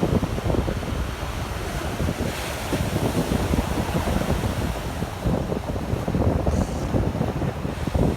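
Wind buffeting the microphone in gusts over the steady wash of ocean surf.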